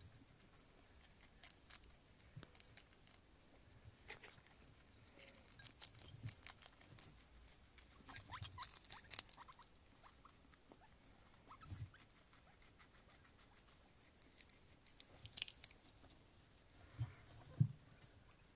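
Guinea pigs biting and chewing food held out by hand: faint, crisp clicky crunching in several short bursts, with a few soft low thumps.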